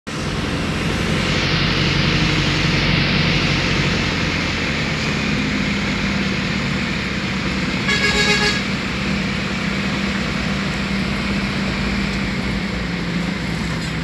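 A vehicle's engine running steadily while driving along the road, with tyre and road noise. About eight seconds in, a vehicle horn toots once for about half a second.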